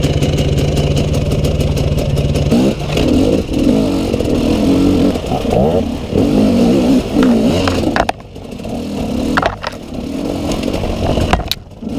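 KTM enduro dirt bike engine running steadily at first, then revving up and down under changing throttle as it rides through a rocky stream bed. A few sharp knocks come near the end.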